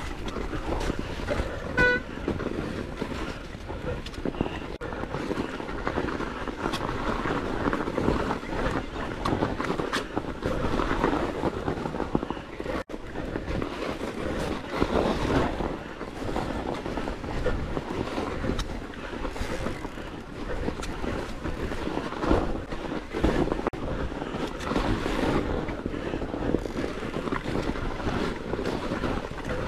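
Electric mountain bike riding down a snowy trail: tyres crunching through snow, the bike rattling and knocking over bumps, and wind on the microphone. A short squeal comes about two seconds in.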